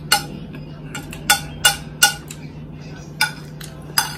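Metal spoon clinking against a plate while eating: about six sharp, ringing clinks at uneven intervals.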